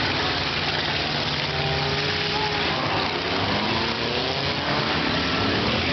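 Car engines running and revving, loud and continuous, with pitch rising and falling as the throttles open and close.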